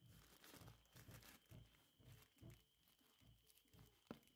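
Faint rustling and soft tapping of hands handling a cardboard knife-set box, with one sharp click near the end.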